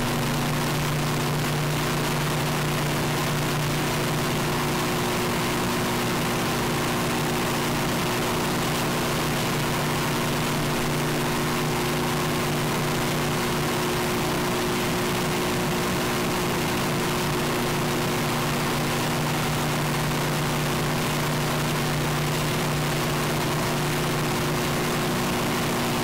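Microwave oven running with a steady hum and dense hiss, boosted loud and distorted.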